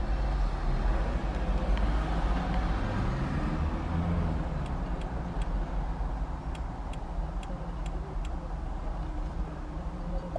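Steady low vehicle rumble. A pitched engine note rises and falls between about two and five seconds in, and a run of faint ticks comes in the middle.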